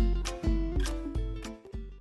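Intro music with a strong, regular bass beat and pitched instrumental notes, about three beats a second, dying away near the end.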